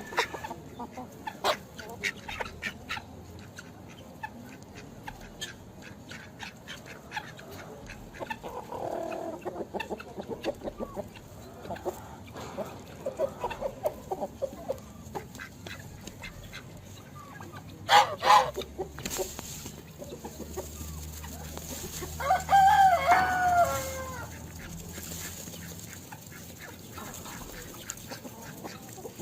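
Chickens clucking, with scattered short calls, a loud double squawk, and one longer pitched call about two-thirds of the way through.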